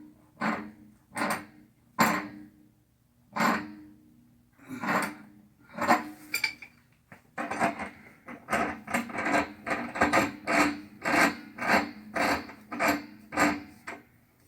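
Repeated rasping, rubbing strokes of hand work on copper pipe fittings, spaced out at first and quickening to two or three strokes a second about halfway through.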